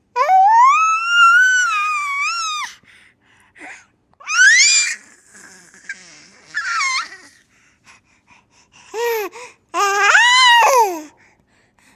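Baby squealing and shrieking with laughter in high-pitched bursts: a long wavering squeal at the start, a sharp rising squeal about four seconds in, and a cluster of shorter squeals near the end.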